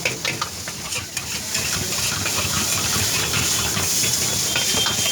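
Food frying in hot oil with a steady sizzling hiss. A metal utensil clicks and scrapes against the pan, mostly in the first second.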